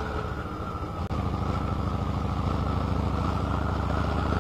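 Harley-Davidson V-twin motorcycle engine running while riding, with wind and road noise. The engine note is a little softer for the first second, the sound drops out for an instant about a second in, then the engine runs steadily.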